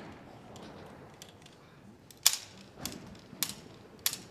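A rapid fire series from a .22 Short sport pistol: four sharp shots in quick succession, about 0.6 s apart, starting about two seconds in. The first shot is the loudest.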